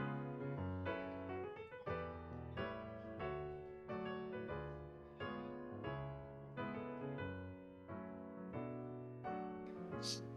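Background piano music, notes struck at a steady pace and left to ring. A short sharp click sounds just before the end.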